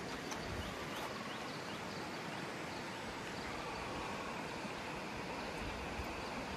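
Steady rush of a fast mountain stream, an even wash of water noise with no change.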